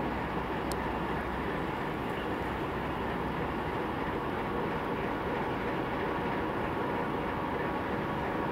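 Diesel locomotive engine running steadily at a station, an even, unchanging low engine noise.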